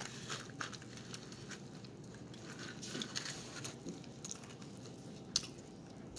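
Close-miked mouth sounds of a person chewing a mouthful of burrito, with many small wet clicks and one sharper click about five and a half seconds in.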